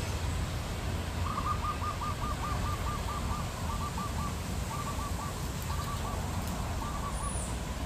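An animal calling: a quick run of about nine short hollow notes, then short groups of three or four notes, over a steady low background rumble.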